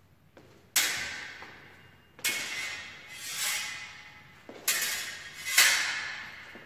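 Sword blades clashing during a fencing exchange, about five strikes, each ringing and fading over roughly a second. One, about halfway through, swells up more like a blade sliding along a blade.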